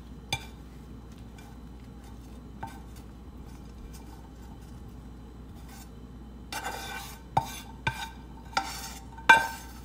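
Spatula scraping and knocking against a frying pan as cooked toppings are scooped out: a single click early, then a quick run of short scrapes and taps in the second half, the loudest near the end.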